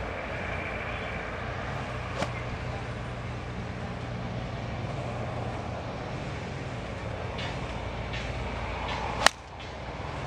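A golf club striking a ball off the tee: one sharp, loud crack near the end. A much fainter click comes about two seconds in.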